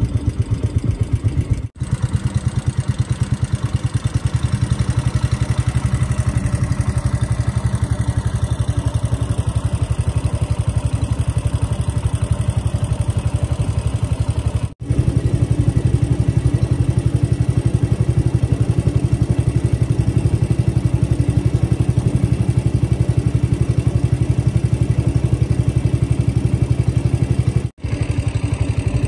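Small boat's engine running steadily under way, with a fast even chugging pulse; the sound drops out briefly three times and is a little louder in the second half.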